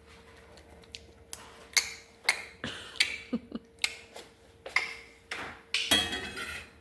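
An irregular run of about a dozen sharp taps and clacks of small hard objects knocking on a hard surface, some with a brief ring.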